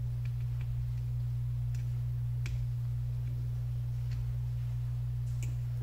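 Steady low electrical hum with a few faint, scattered ticks while a large stained-glass soldering iron works solder onto a thick copper bus bar, re-flowing a joint on a resistor lead that had come out cold.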